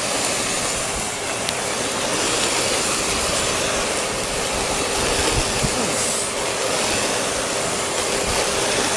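Old Eureka vacuum cleaner running steadily in blower mode, its motor giving a steady whine under loud rushing air, blowing snow off a lawn.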